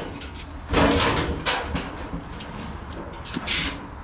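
Large sheet-metal floor pan scraping and rubbing against the car body as it is shoved into place. There is a loud grating scrape about a second in and a shorter, higher scrape near the end, with lighter metal clatter between.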